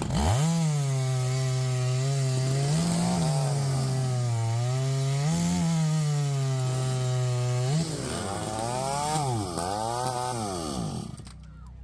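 Two-stroke chainsaw running at full throttle through a timed race cut in a log, its pitch jumping up briefly twice as it bites. About eight seconds in the revs drop, swing up and down several times as the cut finishes, and then the saw dies away.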